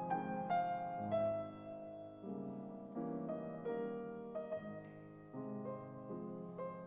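Steinway concert grand piano playing a classical concerto passage: a run of chords and melody notes, each struck and left ringing, changing about every half second to a second.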